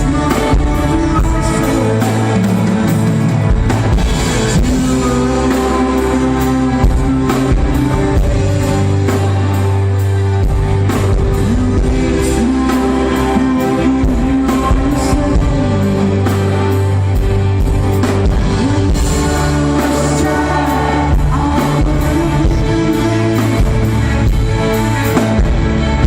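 Rock band playing live: electric guitar and bass over a drum kit keeping a steady beat, with a singer.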